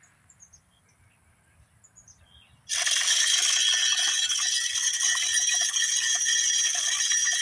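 Hanging deer feeder's spinner motor kicking on suddenly about two and a half seconds in, its spinning plate flinging corn with a loud, steady rattle. Before it starts, near silence with a few faint high chirps.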